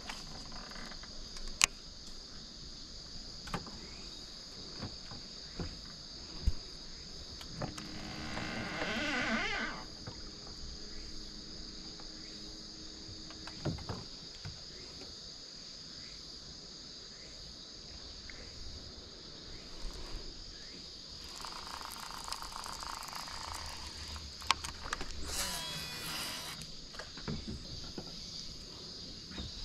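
Insects shrilling steadily in a high, even drone from the lakeside trees, with scattered sharp clicks and two brief whirring sounds, one about a third of the way in and one near the end.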